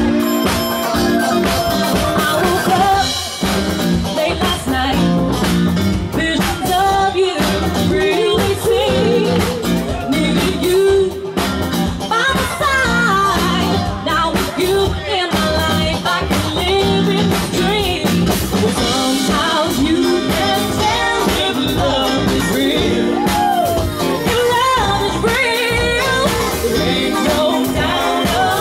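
Live band playing a song: sung vocals over electric guitar, bass, keyboard and a drum kit, loud and continuous.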